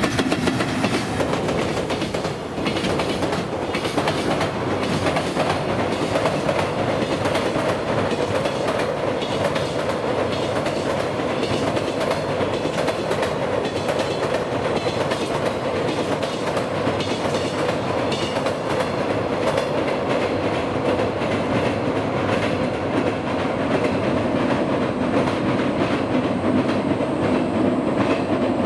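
A long container freight train rolling past, its wagon wheels clattering over rail joints in a steady, continuous rumble.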